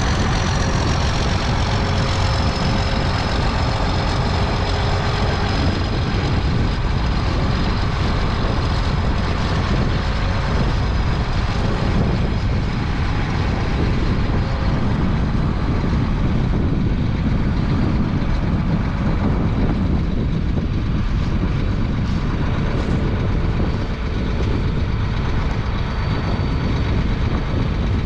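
Case IH 2388 Axial-Flow combine running steadily while harvesting soybeans: a continuous low drone from the engine and threshing machinery, with a faint high whine that dips slightly in pitch over the first few seconds.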